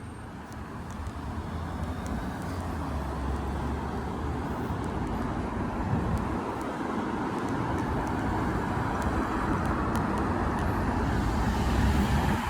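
Road traffic passing by, a steady rush of car engines and tyres that grows gradually louder.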